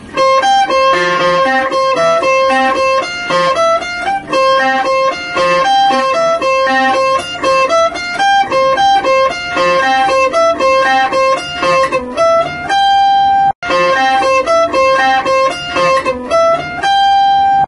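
Guitar playing a solo phrase of high single notes on the top two strings around the 12th to 15th frets, one note after another in a steady run. The sound cuts out for an instant about thirteen seconds in, then the notes carry on.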